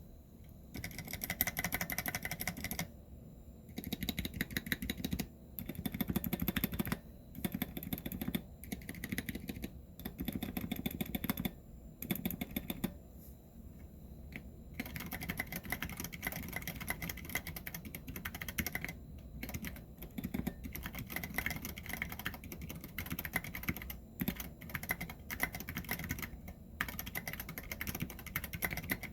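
Fast typing on a custom 60% mechanical keyboard with Cherry MX Brown switches in an aluminium case and plate, dampened with foam and keycap O-rings. The keystrokes come in quick runs with short pauses.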